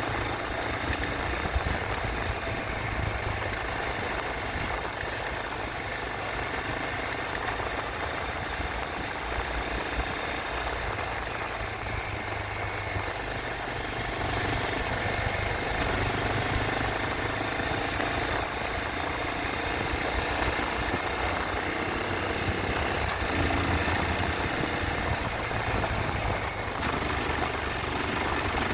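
Yamaha Serow 225 motorcycle's single-cylinder engine running steadily under a continuous rushing noise, as heard while riding.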